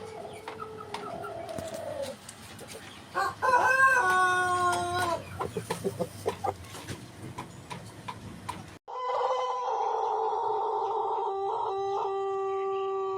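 White Pelung roosters crowing in their long, drawn-out style: a loud crow about three seconds in lasting some two seconds, then a single long crow held on one steady pitch from about nine seconds in. Light clicking ticks fall between the crows.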